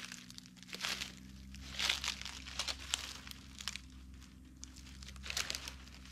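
Footsteps crunching and rustling through dry fallen palmetto fronds and leaf litter, in slow, uneven steps about a second apart.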